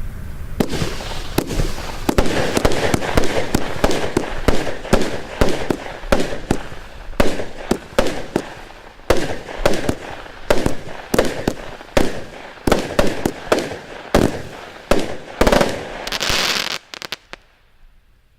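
An Exxclusive Black Spider compound firework cake firing a rapid series of sharp bangs, often two or more a second, over continuous rushing noise. The firing stops abruptly about 17 seconds in.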